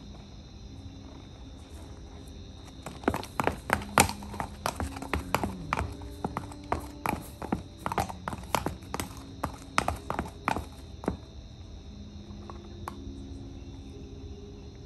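Hooves of a ridden horse clopping on a concrete floor at a walk: a quick, uneven run of sharp strikes from about three seconds in until about eleven seconds in.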